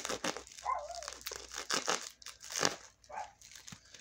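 Plastic bubble wrap being crinkled and torn open by hand: irregular crackling rustles, uneven in strength.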